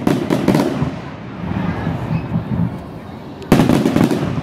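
Fireworks display shells bursting: a loud bang at the start and another about three and a half seconds in, each followed by a short crackle.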